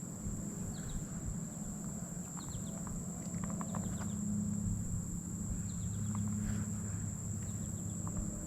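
Steady high-pitched insect chorus, with a low rumble of wind and faint scattered clicks.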